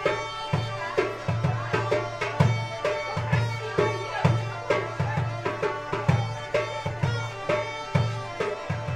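Folk dance tune played on Belarusian bagpipes, a steady drone under the melody, with a drum keeping about two beats a second.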